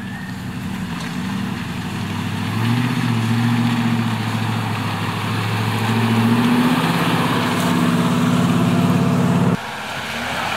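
Nissan GQ Patrol's engine running at low revs as it crawls up a rutted muddy track, growing louder as it nears. The sound cuts off abruptly about a second before the end, leaving a quieter outdoor noise.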